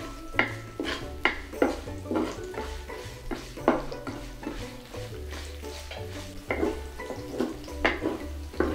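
Wooden spatula stirring onions, curry leaves and spices in sizzling oil in a nonstick wok, with sharp scrapes and knocks about once or twice a second. Mustard seeds pop in the hot oil, the sign that the tempering is ready for the curry paste.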